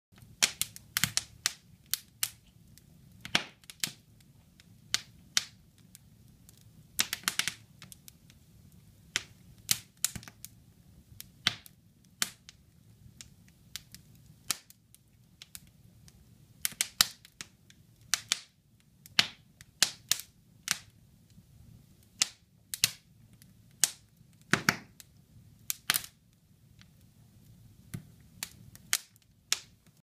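Split logs burning in an open fireplace, crackling with irregular sharp pops, some coming in quick clusters, over a faint low rush of the flames.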